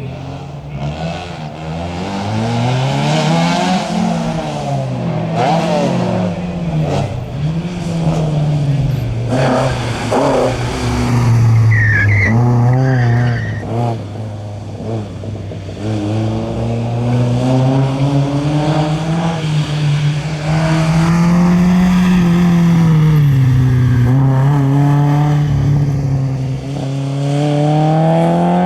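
Historic rally car's engine revving hard, its pitch climbing through the gears and dropping on the lift-offs and downshifts, with crackling on the overrun. A short tyre squeal about twelve seconds in.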